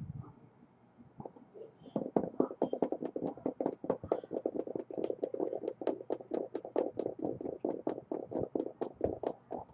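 Dice being shaken, a rapid clattering rattle of about six clicks a second that starts about two seconds in.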